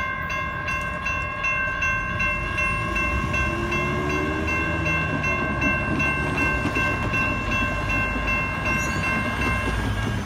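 Railroad crossing electronic bells, a Safetran NEG and a GS Type 1, ringing in a fast repeating electronic ding while the crossing gates rise. The bells cut off shortly before the end once the gates are up, over a low rumble of road traffic.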